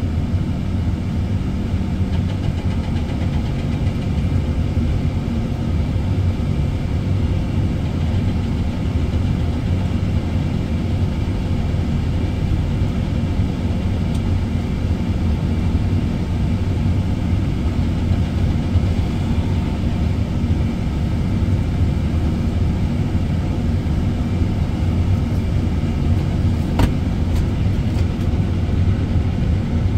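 Diesel engine of a Sany 305 excavator running steadily at an even speed, with a few light clicks near the end.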